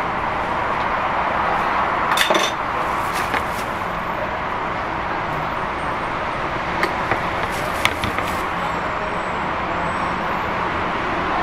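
Steady background noise of a busy street-food stall, with a few light clinks and taps of metal utensils. The loudest is a short cluster of clinks about two seconds in, followed by single ticks later on.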